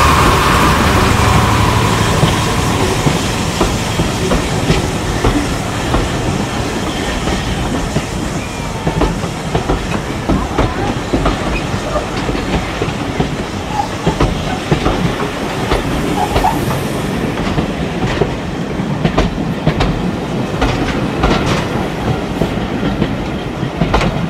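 Railway passenger coaches rolling past close by, their wheels clicking and clattering over the rail joints in a steady run that eases off a little as the train goes by.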